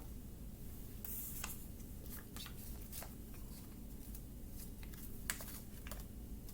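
Small handling noises: scattered light clicks and a brief rustle about a second in, over a low steady hum.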